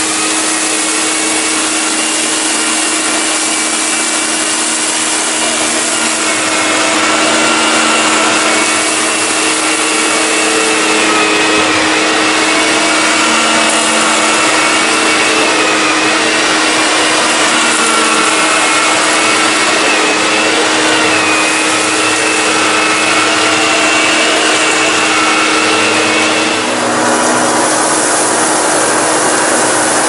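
Electrolux Grand Marquise model 1521 canister vacuum cleaner running steadily while its floor nozzle is pushed back and forth over carpet, picking up crumbs. Its whine wavers in pitch as the nozzle moves.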